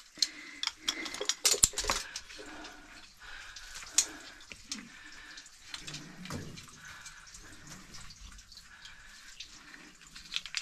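Climbing gear knocking and clicking in the first two seconds, then quieter wet scuffing as a caver starts up a muddy cave slope on a rope hand line.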